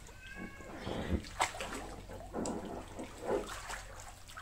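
Water splashing and sloshing in a swimming pool in irregular strokes, with a brief high-pitched cry near the start.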